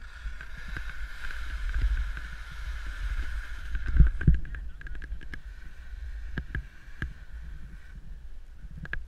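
Skis sliding and scraping down steep snow, with a steady wind rumble on the microphone. The hiss of the skis is strongest in the first few seconds, two heavy thumps come about four seconds in, and sharp ticks are scattered throughout.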